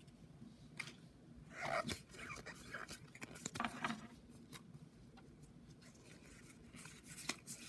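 Pokémon trading cards being handled and slid against one another as a pack's stack is flipped through: faint scraping rustles and small clicks, a little louder twice in the middle.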